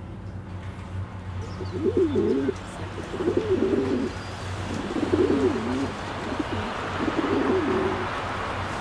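Pigeons cooing: a run of low, warbling coos, one after another, beginning about two seconds in, over a steady low hum and a hiss that grows louder.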